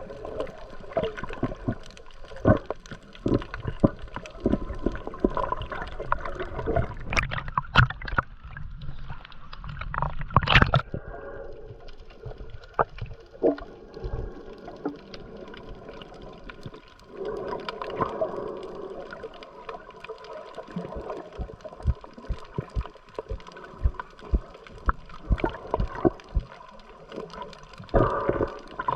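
Water gurgling and sloshing around a camera at or under the sea surface while snorkelling, with many scattered clicks and knocks.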